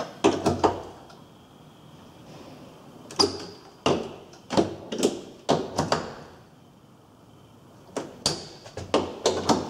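Sharp plastic clicks and knocks of a multifunction tester's probes being pressed into and taken off socket outlets one after another, testing line-to-neutral continuity at each socket of a ring final circuit. They come in quick clusters, one at the start, one in the middle and one near the end, with short quiet gaps between.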